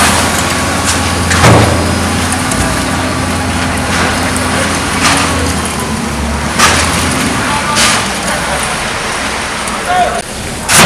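A dump truck's engine runs with a steady low hum, while several short, sharp scrapes or knocks cut through it and voices carry in the background.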